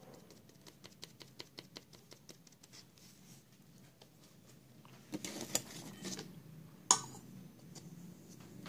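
Faint handling of a paint tin and a stir stick: a quick run of small clicks as paint is dabbed from the stick onto a card, then rustling and one sharp click about seven seconds in as the metal lid goes back onto the paint can.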